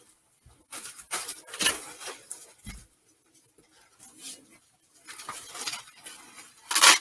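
Rustling and scuffing as fursuit pieces are handled and put on, in irregular bursts, with the loudest burst near the end.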